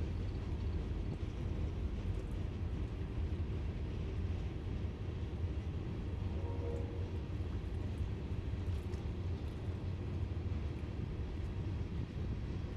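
Work train of ballast hopper cars rolling slowly past on a 10-mile-per-hour test run, a steady low rumble.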